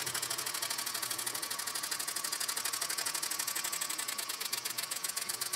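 Miller toy steam engine in its horizontal form, running fast on steam from its electric Bakelite boiler: a quiet, rapid, even ticking from the piston, valve and linkage.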